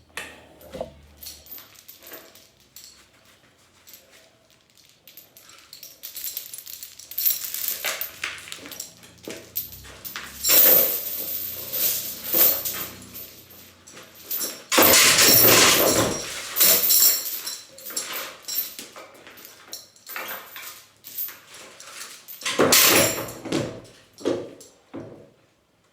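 Demolition work: irregular scraping, knocking and clattering as building material is pried and broken loose, with several loud bursts, the longest about 15 seconds in.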